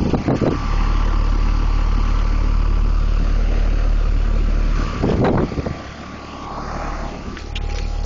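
Grand Aire straight-cool central air conditioner condenser running, with a steady hum. Its fan blows air up through the top grille across the microphone, giving a heavy low rumble of wind buffeting that drops away about six seconds in and then builds again.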